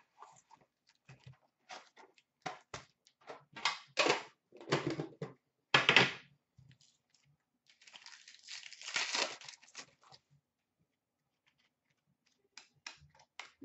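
Handling an Upper Deck hockey card box and its foil packs: a run of short knocks and rustles. About eight seconds in comes a longer crinkling tear as a card pack's wrapper is ripped open, followed by a few light clicks of cards being handled.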